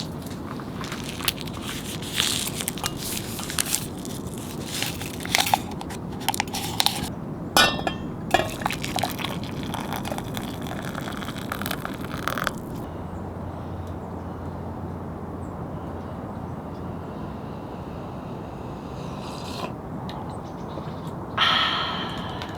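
Steady winter rainfall, with a run of light clinks and scrapes of dishes and utensils through the first half. Near the end comes one brief louder clink or scrape.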